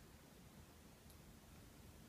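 Near silence: room tone, with one faint tick about a second in.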